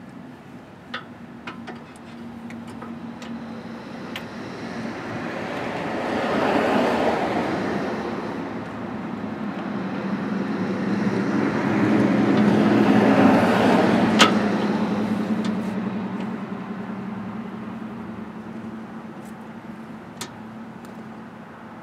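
Passing road traffic: two vehicles go by one after the other, each swelling and fading over several seconds, with a low steady hum under the second. A few sharp light clicks sound over it, the loudest about two-thirds through.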